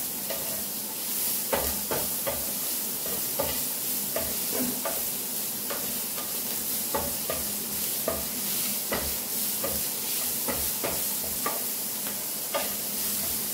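Vegetables sizzling as they stir-fry in hot oil, with a steady hiss and frequent irregular knocks and scrapes of a stirring utensil against the pan.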